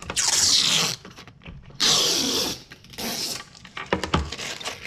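Packaging being handled and pulled open: three loud, scratchy rustling or ripping strokes, followed by a few light clicks and taps near the end.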